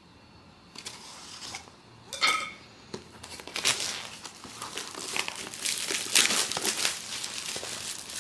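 Blind-box packaging being handled and crinkling, with dense crackly rustling that builds from about three seconds in. A short ringing clink about two seconds in.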